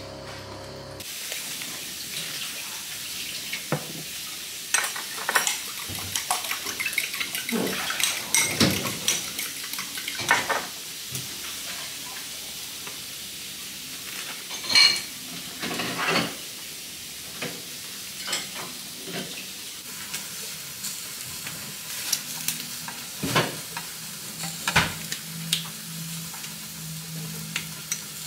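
Kitchen clatter of dishes and cutlery: irregular clinks and knocks of spoons, bowls and plates being handled while breakfast is made, over a steady background hiss.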